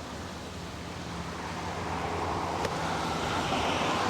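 Car engine hum and road noise heard from inside a moving car, growing louder toward the end.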